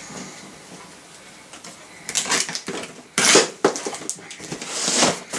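Utility knife cutting into the packing tape and cardboard of a shipping box: irregular scraping and rustling strokes starting about two seconds in, the loudest just after the middle.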